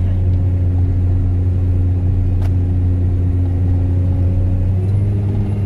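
Self-propelled crop sprayer's engine running steadily, heard inside the cab as a low drone. A single click about two and a half seconds in.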